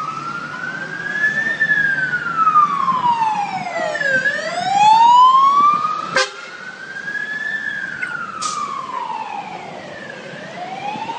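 Fire engine siren sounding a slow wail that rises and falls in pitch about every six seconds. It is loudest around five seconds in, and a sharp click about six seconds in leaves it quieter afterwards.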